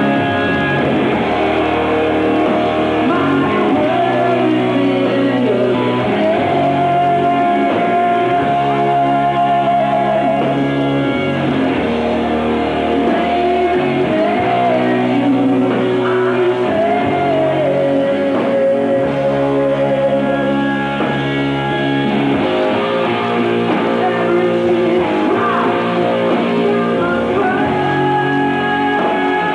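Slow hard rock ballad played by a band: electric guitars, bass and drums, with a male lead vocal carrying the melody.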